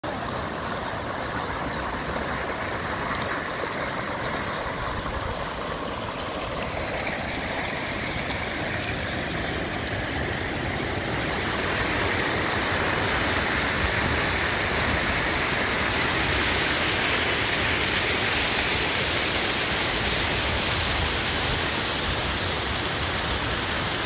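Creek water rushing over rock shelves in shallow rapids, a steady noise with no break. About eleven seconds in it grows louder and hissier as a small waterfall pouring into a pool takes over.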